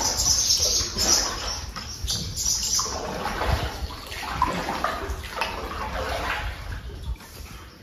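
Water splashing and sloshing around a canoe under irregular paddle strokes.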